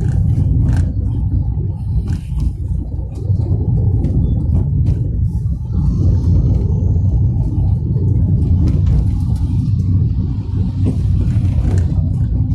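Cabin noise inside a Tata Tiago hatchback on the move with all windows closed: a steady low rumble of tyres and engine, with a few light clicks here and there.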